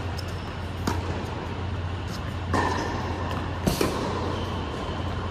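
Tennis rally on an indoor hard court: a faint, distant racket hit about a second in, another knock at about two and a half seconds, then the loudest, a close racket hit at about three and a half seconds, echoing in the hall over a steady low hum.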